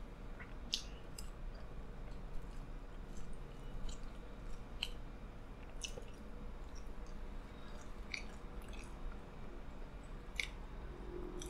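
A person chewing a large mouthful of pizza with the mouth closed, close to the microphone, with scattered small wet mouth clicks over a low steady hum.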